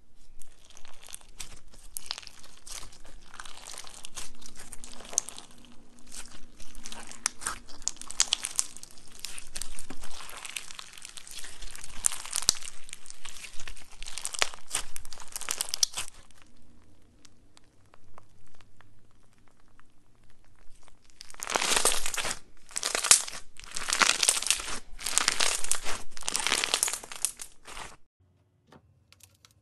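Clear slime packed with red and gold beads and sequins being squeezed and kneaded by hand, with dense crackling and popping from the beads. It eases off for a few seconds past the middle, then comes back as about five loud squeezes roughly a second apart.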